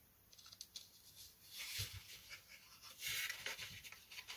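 Faint clicking and scraping of a plastic push-rod inner being slid back into its outer tube through the holes in balsa fuselage formers, with a soft knock about two seconds in and a short rubbing scrape about three seconds in.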